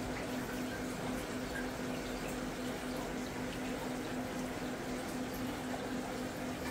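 Steady trickle and splash of water from running aquarium filtration, with a steady low hum under it.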